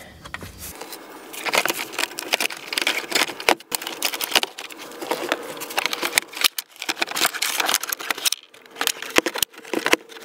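Plastic heater box of a PT Cruiser being worked loose and pulled out of the dashboard: an irregular run of plastic clicks, knocks and scrapes against the dash and surrounding parts, with rustling of its foam wrap and loose wires.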